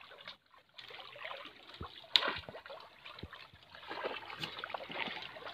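Pond water splashing and trickling as men wade and drag a fishing net through the shallows along the bank, with one sharp, brief noise about two seconds in.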